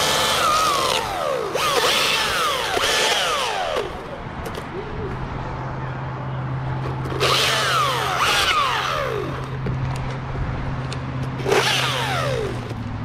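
Climbing rope pulled through a tree climber's rope system in four bursts, each a hiss with squeaky whines that fall in pitch. A low steady hum comes in about five seconds in.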